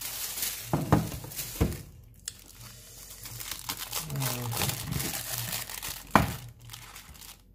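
Plastic packaging crinkling and rustling as a new radio is unwrapped by hand, with sharp crackles about one and one and a half seconds in and another about six seconds in.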